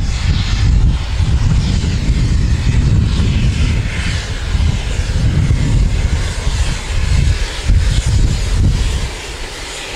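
Wind buffeting the microphone in uneven gusts, over a faint distant rumble of an approaching steam locomotive and its train.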